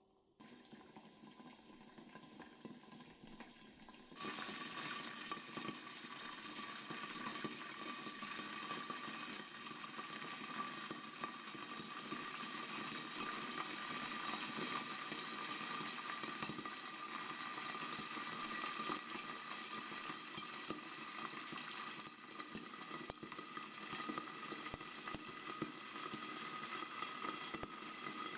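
Hot oil sizzling as soaked, still-wet popcorn kernels heat in a covered pan, getting louder about four seconds in. A faint steady high tone runs through the hiss.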